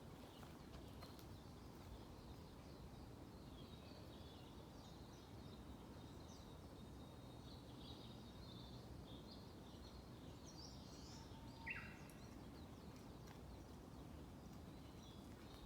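Small forest birds chirping and singing faintly over a steady low background rumble, with one louder short call about three-quarters of the way through.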